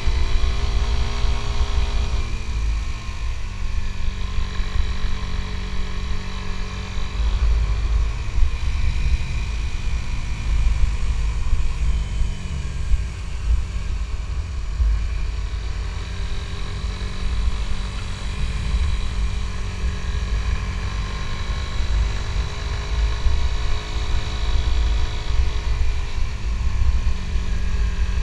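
Suzuki GSX-S150 single-cylinder motorcycle engine running under way, its pitch stepping down about two seconds in and then rising and falling with the throttle. A heavy low rumble of wind on the microphone runs along with it.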